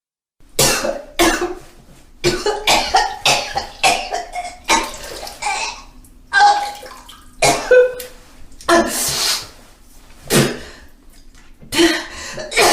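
A person retching and vomiting in a dozen or so short, sudden heaves, with a strained voice and wet, gurgling sounds.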